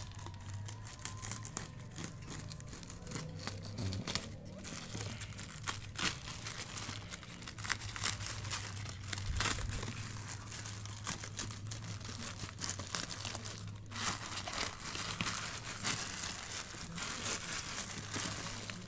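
Black plastic bag wrapping and packing tape on a parcel being slit with a utility knife and torn open by hand: irregular crinkling, rustling and sharp crackles, busiest in the second half.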